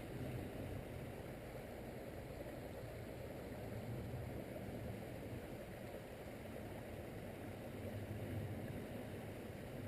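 Stream water running steadily over the streambed, an even rushing wash.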